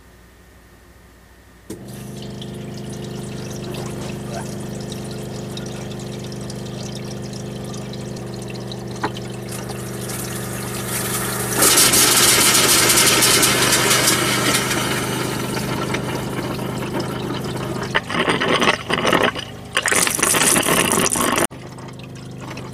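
RV water pump switching on about two seconds in and running with a steady hum as it fills an electric mini-tank water heater. From about halfway, a loud rush of water from the open hot tap joins it, turning uneven and sputtering near the end.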